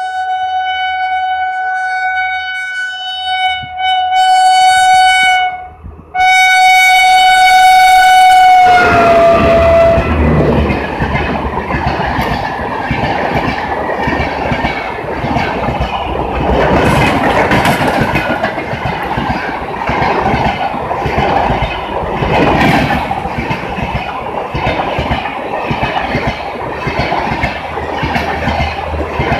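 WAP-5 electric locomotive's horn sounding one steady note, broken once briefly and louder in its second half, its pitch sliding down as the locomotive passes. Then the passenger coaches rush by at speed, wheels clattering steadily over the rail joints.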